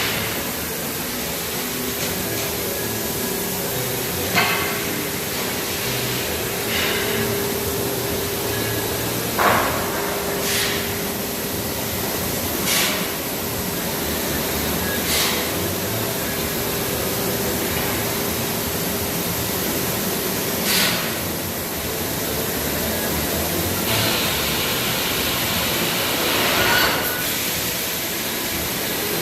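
Bystronic Bystar 3015 CNC laser cutter running: a steady hiss with a faint steady hum, broken by short sharp bursts every two to three seconds.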